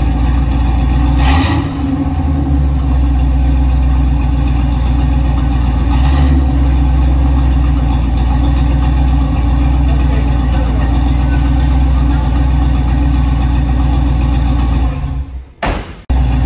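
The K10's 350 small-block Chevy V8 running steadily at idle, with a brief louder rush twice early on, then cutting out just before the end.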